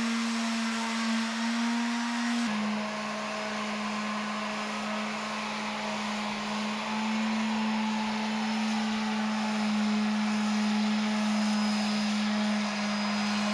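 A motor running steadily: a constant hum with a rushing, whooshing noise over it, dropping slightly in pitch about two and a half seconds in.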